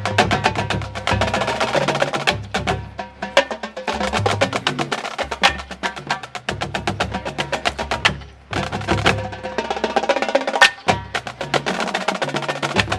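Marching band drumline playing a fast cadence: rapid stick and rim strokes over pitched bass drums, with a few brief breaks between phrases.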